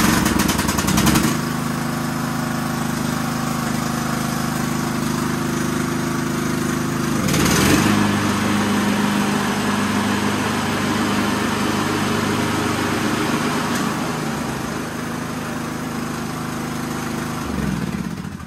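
Craftsman LT2000 lawn tractor engine running steadily just after start-up. About seven seconds in, the engine dips briefly under load with a burst of rushing noise as the mower blades are engaged through the newly replaced engagement cable. Near the end the engine is shut off and runs down.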